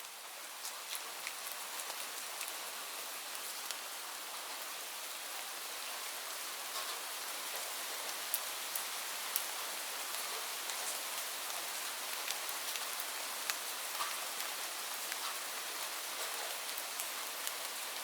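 Steady rain falling: an even hiss with many sharp, scattered drop ticks, fading in over the first couple of seconds.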